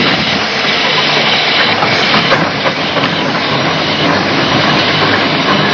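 Steam traction engine running, with a steady hiss of steam.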